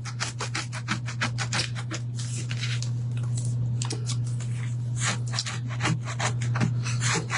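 Dried glue being scraped off a wooden surface in quick repeated strokes, several a second, over a steady low hum.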